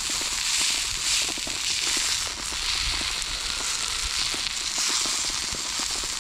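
Venison loin searing in hot oil in a skillet, a steady loud sizzle with many small crackling pops that swells and eases in waves.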